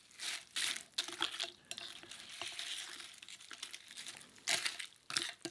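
Close-miked eating of ramen noodles with seaweed crisps: crackly, crunchy mouth sounds in several short bursts, the loudest near the end.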